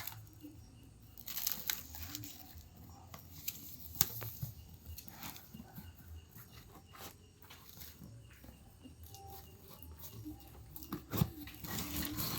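A parcel being unpacked by hand: scattered crinkling and tearing of packaging with small knocks, the loudest burst near the end.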